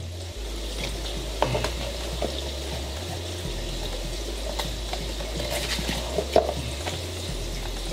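Cardboard box flaps and a paper leaflet being handled, with soft rustles and a few light taps over a steady background hiss.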